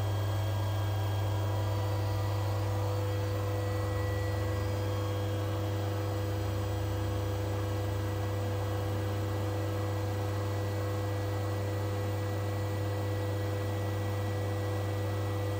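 Steady low electrical hum of workshop machinery, with fainter steady tones above it, unchanging throughout.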